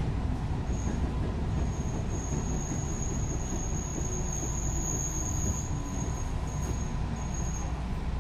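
JR 221 series electric train with field-added excitation control running: a steady low rumble of wheels and running gear, with a thin, high wheel squeal that comes in about a second in, loudest around the middle, and fades out in short pieces near the end.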